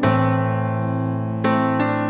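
Background music: a piano playing sustained chords, with a new chord struck at the start and another about one and a half seconds in.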